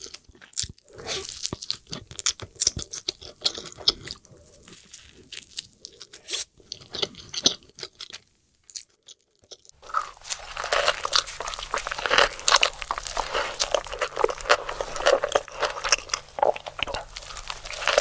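Close-miked crunchy bites and chewing of crispy fried chicken burger, with sharp crackles. A little after the middle it stops for about a second and a half. It then resumes, denser, over a low steady hum.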